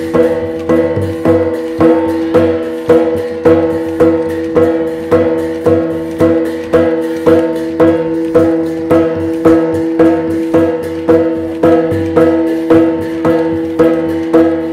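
Traditional Tai Yai (Shan) percussion music for the To dance: a drum and gongs keep a steady beat of about two to three strokes a second, with a ringing pitched tone held underneath.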